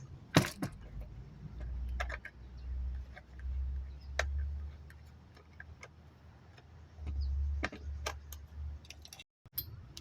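Hand work on a chainsaw's plastic housing and parts: scattered small clicks and taps, with stretches of low rumbling handling knocks.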